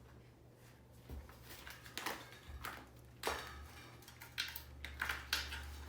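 Hands working on a bicycle wheel and inner tube: an irregular run of light clicks, knocks and rustles, with a steady low hum underneath.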